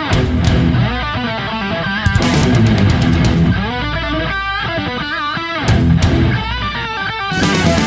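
Rock-style instrumental music led by electric guitar over bass, with sharp hits at intervals.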